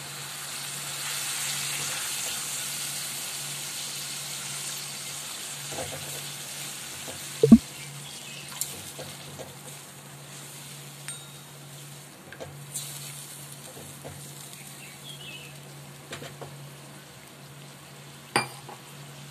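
Water sizzling in a hot kadai of fried spice paste, the hiss strongest at first and fading over several seconds as it is stirred in. A spatula stirs and knocks against the metal pan a few times, most loudly about seven seconds in and again near the end.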